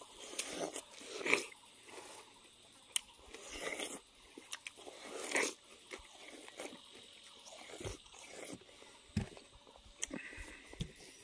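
People biting into and chewing watermelon slices, close to a clip-on microphone: irregular wet bites and chewing, loudest about a second in and again about five seconds in.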